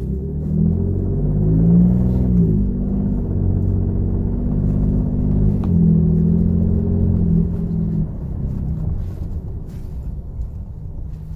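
Gen2 Ford Raptor's twin-turbo 3.5 L EcoBoost V6 pulling under light acceleration. It rises in pitch, drops at upshifts about two and a half and six seconds in, then eases off. This is the low-gear, light-throttle condition around 2,000 rpm where a knock from a spun connecting-rod bearing in cylinder 4 is heard.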